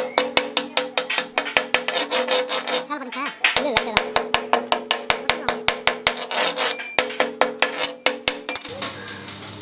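Rapid metal-on-steel tapping, about five or six strikes a second with a short pause around the third second, over a steady machine hum; typical of hammering or chipping on a welded steel loader bucket.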